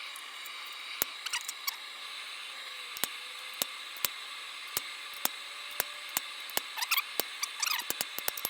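Irregular light metal taps and clicks, roughly one or two a second and coming faster near the end: a hammer driving a drift through a punched hole in a hot forged steel bottle opener, over a steady high hum.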